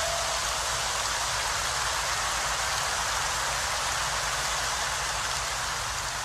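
A steady hiss of rain-like noise with no pitch, sinking slowly in level near the end. The last notes of the music die away just at the start.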